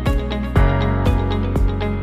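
Background music with a steady beat and sustained chords, changing chord about half a second in.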